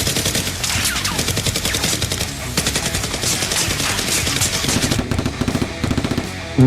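Rapid automatic gunfire over background music, the shots coming in long fast strings that thin out briefly about five seconds in.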